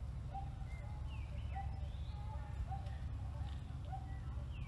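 Short animal calls repeating about twice a second, with a few higher gliding chirps, over a steady low rumble.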